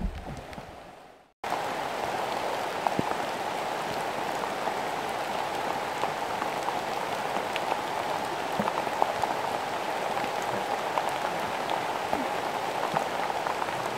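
Steady rain falling on forest foliage, with scattered single drops ticking close by. It starts abruptly about a second and a half in, after a brief silence.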